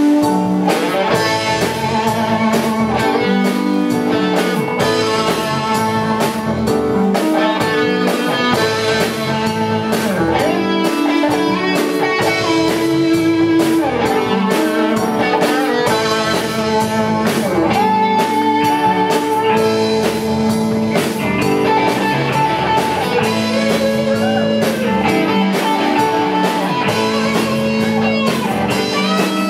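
Live rock band playing an instrumental passage, with electric guitar to the fore over bass guitar and drums.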